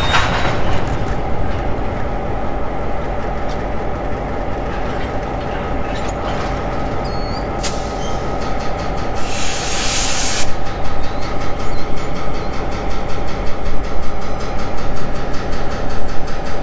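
Diesel freight locomotive running slowly past with its covered hopper cars, a steady engine drone and rumble. A short burst of hiss comes about nine seconds in.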